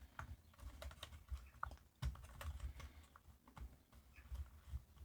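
Faint, irregular light clicks and soft knocks of small parts and a plastic Bluetooth speaker casing being handled during reassembly, as screws are fitted.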